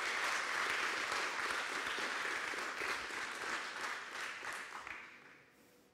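Audience applauding in a large hall, dying away about five seconds in.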